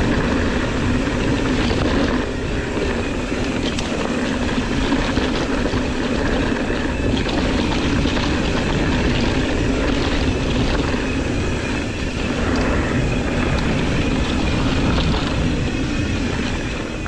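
Mountain bike running fast down a dirt singletrack: steady wind noise and knobby tyre rumble on the handlebar camera's microphone, with small rattles and clicks from the bike over bumps.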